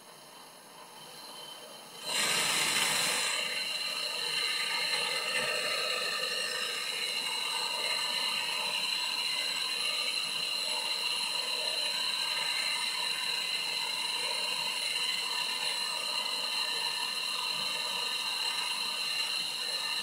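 Handheld gas torch comes on full with a brief rush about two seconds in, then burns with a steady hiss while its flame heats the refrigerator's copper tubing for brazing.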